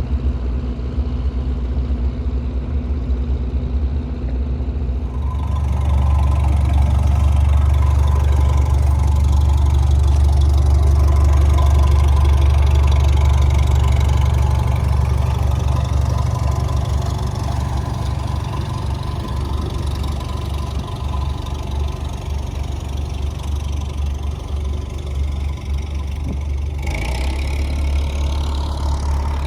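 Diesel engine of a bottom-trawl fishing boat running steadily under way, a deep drone that grows louder about five seconds in.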